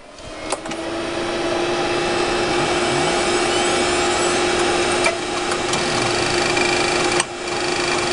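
Old PC powering up: fan hum builds and the Western Digital Caviar 21200 hard drive spins up with a faint rising whine, then runs steadily. Two sharp clicks come from the drive midway and near the end; the owner calls this a clink noise that it never used to make and wonders if it is the start of the click of death.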